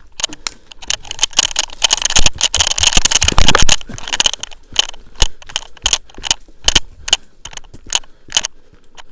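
Footsteps crunching on dry forest-floor debris, about two or three a second. A louder, denser flurry of steps and rattling gear comes about two to four seconds in as the player hurries.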